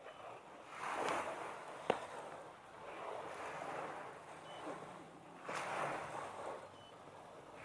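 Small waves washing onto the sand, rising and falling in swells every couple of seconds. A single sharp click comes about two seconds in.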